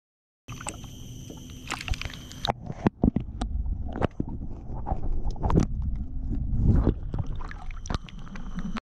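Paddling on a stand-up paddle board: irregular splashes, sloshing and knocks on the water. A steady high whine runs through the first two seconds.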